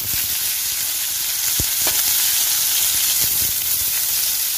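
Raw mango slices and whole spices frying in mustard oil in a kadhai, a steady sizzle, with a few light knocks.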